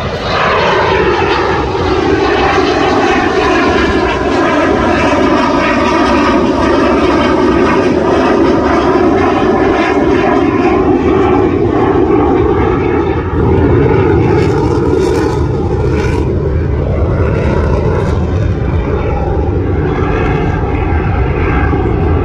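A fighter jet, an F-16, makes a low pass with its engine running in a loud, continuous roar. The pitch of the roar drops over the first couple of seconds and then holds steady.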